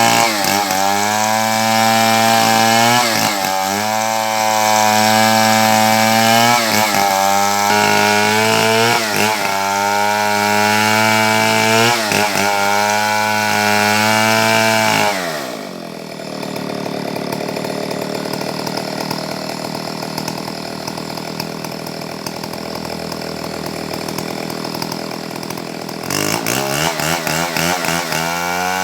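Two-stroke chainsaw running at high revs, its pitch dipping briefly every few seconds. About halfway through it drops to a lower, rougher idle, then revs back up near the end.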